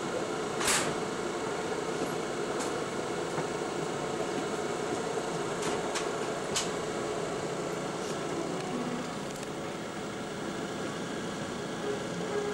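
Steady mechanical hum and hiss from a train standing at a station, with a few short clicks and knocks.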